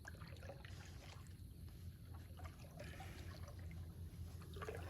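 Faint water trickling and dripping from a kayak paddle dipped quietly, with small scattered splashes and ticks over a steady low hum.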